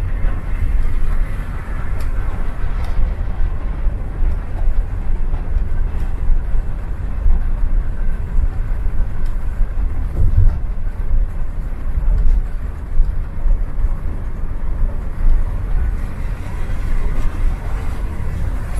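Hino-engined intercity coach at highway speed, heard from the front of the bus: a steady low engine and road rumble with tyre and wind noise over it. Near the end it pulls alongside another bus to overtake.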